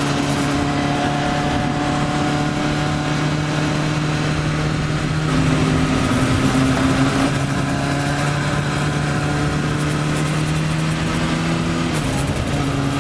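Kawasaki Ninja sportbike engine running at a steady cruise, with wind and road noise from riding at highway speed. The engine note drops a step about five seconds in and shifts again near the end.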